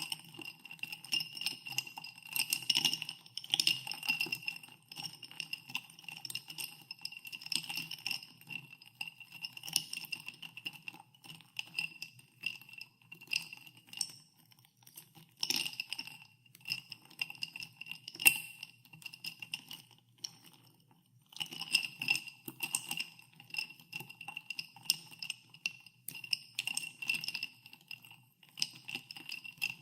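Ice cubes stirred in a glass of soda water, clinking against the glass in uneven runs of light ringing clinks, with a short near-quiet pause about two-thirds of the way through.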